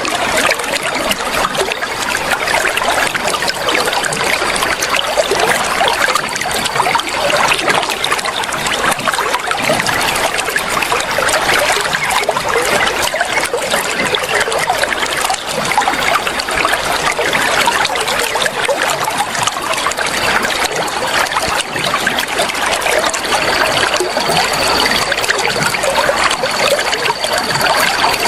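Flowing water trickling and splashing in a steady, unbroken rush.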